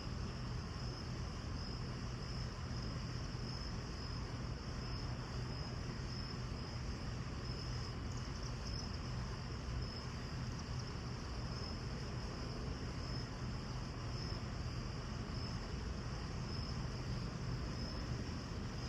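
Crickets chirping in a steady, evenly pulsing high trill over a constant hiss and a low hum.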